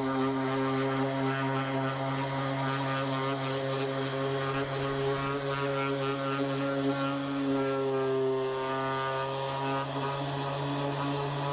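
Electric sander running with a steady motor hum while sanding a car bumper, its pitch wandering slightly about eight seconds in.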